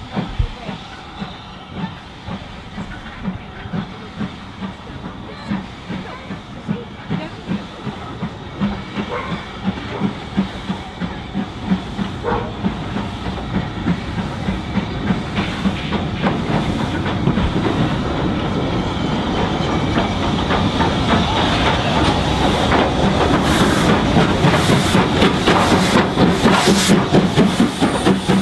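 Steam locomotive working, its exhaust beats coming in a regular rhythm over a steady steam hiss, growing steadily louder as it draws closer.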